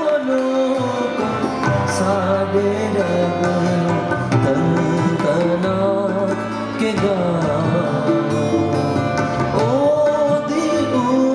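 Live band playing an instrumental passage of a Punjabi psalm (Zabur) worship song: a melodic lead with bending notes over sustained bass and drums, with a cymbal crash about two seconds in.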